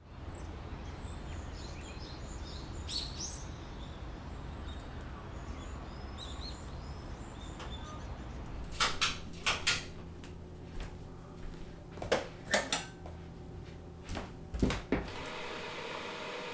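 Outdoor ambience with a steady low rumble and faint bird chirps. Then, from about nine seconds in, a run of sharp knocks and clacks. Near the end comes the steady hiss of an electric kettle heating water.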